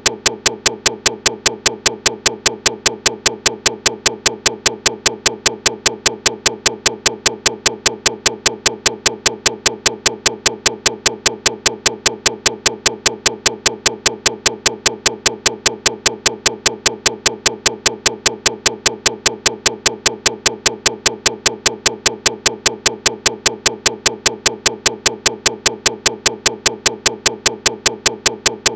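Recording glitch: a short snippet of audio repeating over and over as an even train of sharp clicks, about five a second, over a constant buzz.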